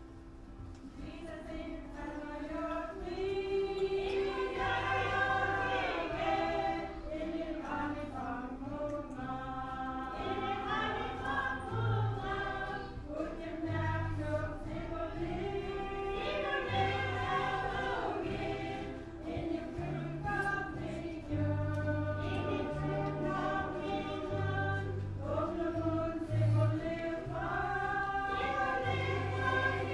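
Church choir singing a gospel hymn translated into Inupiaq, over a low bass accompaniment.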